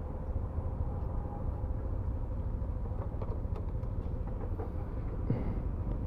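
A motorcycle on the move: a steady engine hum under a heavy wind rumble on the microphone.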